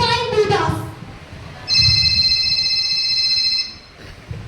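A steady high-pitched electronic beep, held at one pitch for about two seconds, starting after a child's brief speech.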